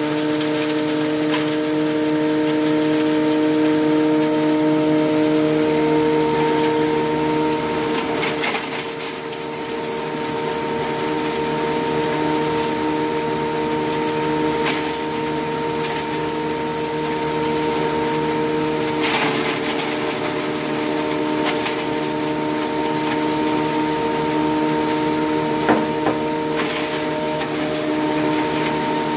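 Model 198 5.3 hp single-phase electric hammer mill running steadily while it grinds wood sawdust and chunks through its fine 2 mm screen, giving a steady hum over a rushing hiss. A few sharp ticks come through, around a third of the way in and again twice toward the end.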